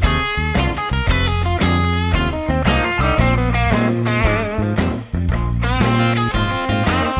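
Background rock music led by a guitar with bent, wavering notes over a steady beat.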